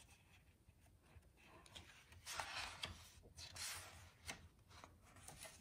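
Quiet paper rustle of a picture-book page being turned by hand, with two soft swishes a little past the middle and a few light taps.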